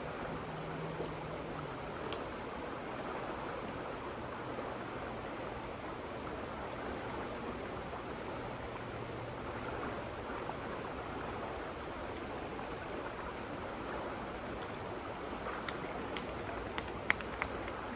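Steady rushing noise of moving water, with a few faint clicks near the end.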